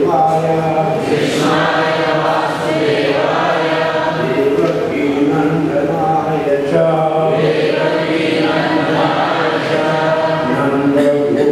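A group of voices chanting a melodic devotional recitation together, the held notes moving in short phrases.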